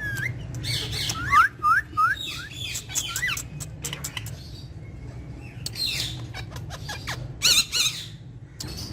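Pet parrots calling: a quick run of about five short rising chirps in the first few seconds, then louder squawks with a wavering pitch about six and seven and a half seconds in, over a steady low hum.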